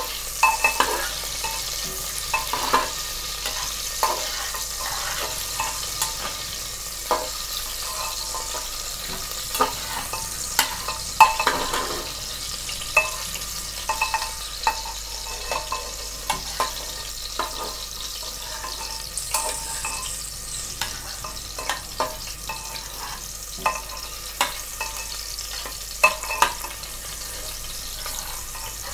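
Onions frying in hot oil in a metal pot, a steady sizzle, while a spoon stirs them, scraping and knocking on the metal with frequent short ringing clinks. The onions are being cooked until they turn red-brown.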